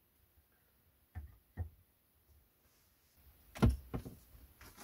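Hatchet knocking against a split-wood leg on a wooden chopping block: two lighter knocks just over a second in, then a louder cluster of three knocks in the second half.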